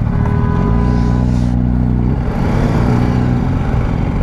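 Sports motorcycle's engine revving at close range: a held note for about two seconds, then it drops and climbs again.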